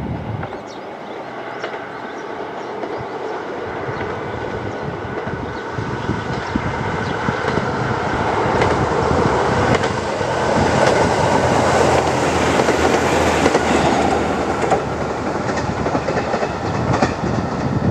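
Diesel train passing close by on a single track: its engine and wheels grow louder as it approaches, loudest about twelve to fourteen seconds in, easing off near the end, with wheels clicking over rail joints.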